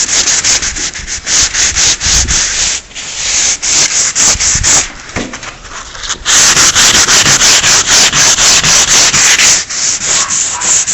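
240-grit sandpaper rubbed back and forth by hand over a classic Mini's bodywork in quick strokes, about three or four a second, flatting down the surface. Just past halfway it turns louder and steadier for a few seconds, then goes back to separate strokes.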